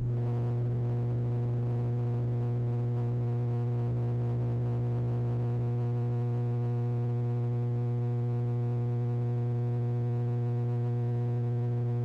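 Steady, loud low buzz of an ATR 72's turboprop propellers heard inside the cabin during the climb after takeoff. It is one unchanging drone with a ladder of even overtones, the characteristic ATR buzz.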